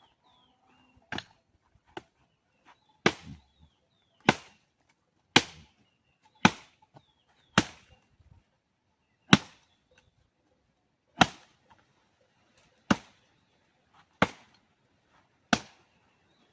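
A run of about a dozen sharp blows or cracks, one every second or so, the first two lighter and the rest hard.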